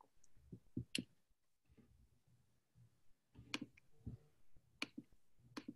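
Near silence broken by a handful of faint, irregularly spaced clicks.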